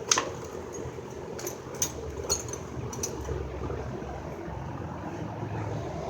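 Small metal spark plugs clinking and clicking a few times as they are handled, over a steady low hum.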